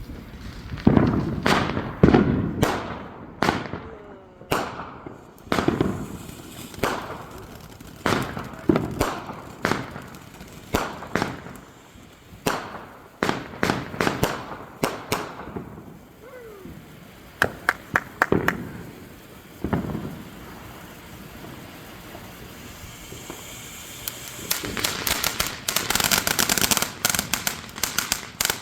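Fireworks going off: a long run of booming bursts, each trailing off in a rolling echo, then a few sharp cracks. A dense, rapid crackling builds up near the end.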